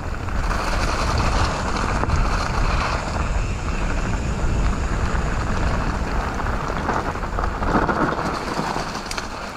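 Mountain bike rolling along a rough trail: steady noise of the tyres on the ground with a low rumble of wind buffeting the action camera's microphone.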